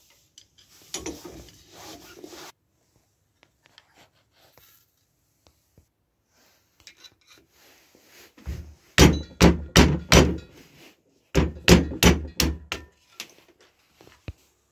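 Hammer blows on a punch driving the old handle scale off a knife tang clamped in a bench vise: two quick runs of about five sharp knocks each in the second half. Near the start there is a couple of seconds of scraping as the knife is handled in the vise.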